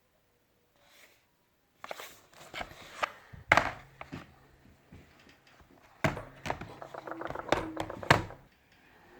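Clicks, taps and knocks of a plastic laptop case being handled and taken apart by hand, starting about two seconds in. The sharpest knocks come about three and a half, six and eight seconds in.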